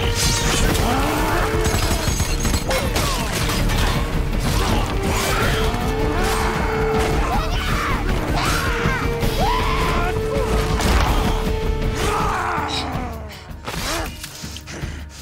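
Action-film battle soundtrack: a tense score with a long held note under a run of hits, crashes and scuffles. It falls away and turns quieter near the end.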